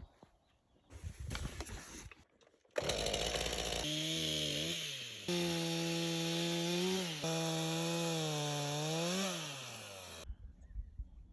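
Stihl gas chainsaw running at high revs cutting firewood, its engine pitch sagging and rising again as the chain bites into the wood. It comes in suddenly about three seconds in after a quiet start and cuts off suddenly near the end.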